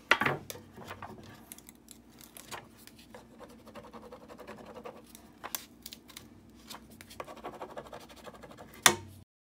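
Burnishing tool scratching and rubbing over the backing sheet of a rub-on furniture transfer, with scattered small ticks. There is a sharp tap at the start and another near the end, then the sound cuts off.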